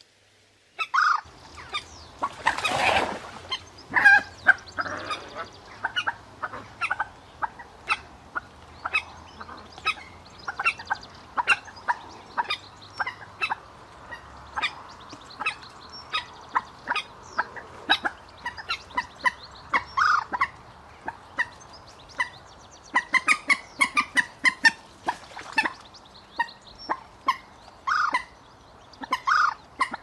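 Common moorhen calls: after a second of near silence, a rapid run of short, sharp call notes, broken by several louder, longer calls.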